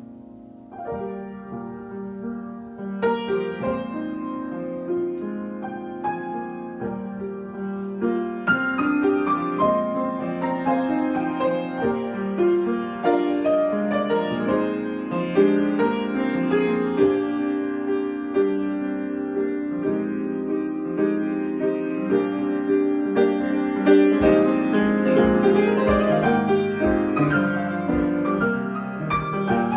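Solo piano improvisation: flowing phrases of many struck notes and chords, starting softly and swelling to a fuller level within the first second or two.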